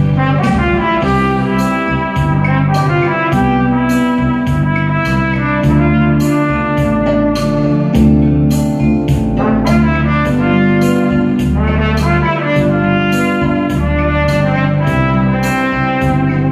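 Trumpet playing a melody over a backing track with bass and a steady beat.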